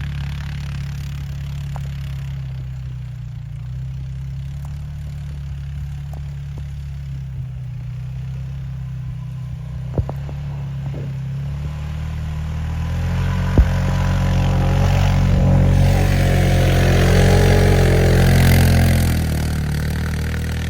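Vehicle engine running under throttle. About two-thirds of the way in it opens up and revs louder and harder, then eases off near the end. Two sharp knocks sound around the middle.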